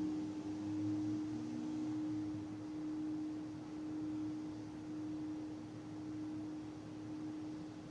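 Singing bowl ringing out: one steady low tone that swells and ebbs in a slow wavering pulse while it gradually fades.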